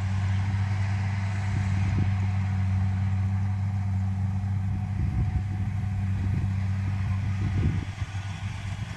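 Kubota DC70 combine harvester's diesel engine running steadily while it cuts rice, a constant low hum that drops a little in level near the end.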